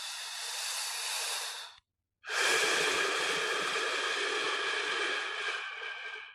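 Person snoring: a long airy breath that ends about two seconds in, then after a short pause a louder, longer breath with a whistling tone in it that fades out at the end.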